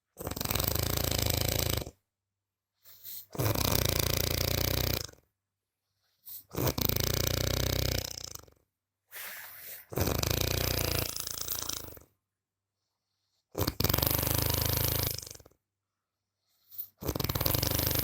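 A person snoring: six long snores come about every three seconds, each lasting about two seconds, with silence between them.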